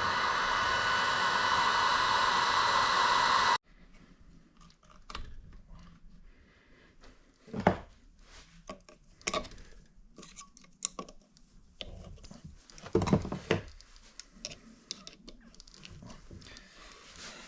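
A motor-driven tool runs with a steady whirring hiss, then cuts off suddenly about three and a half seconds in. Scattered clicks and knocks of parts being handled follow, with a few louder knocks.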